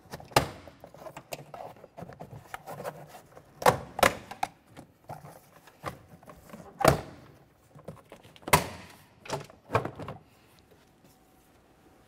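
Plastic retaining clips of a Ford Explorer Sport Trac's interior door panel popping loose as the panel is pried off the metal door with a plastic trim tool: about seven sharp snaps, unevenly spaced, with fainter clicks between.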